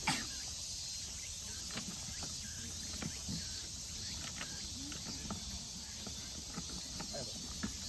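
A steady, high-pitched insect chorus, with scattered light knocks and rustles of football equipment being packed into bags.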